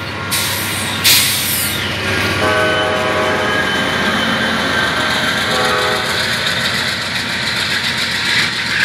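Amtrak passenger train rolling past at speed, its wheels clattering on the rails, with two horn blasts, one at about two and a half seconds and a shorter one at about five and a half seconds. The GE Genesis diesel locomotive pushing at the rear passes near the end.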